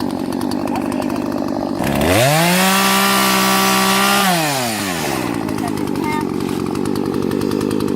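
Two-stroke gas chainsaw idling, revved sharply to full throttle about two seconds in and held there for about two seconds, then dropping back to a steady idle.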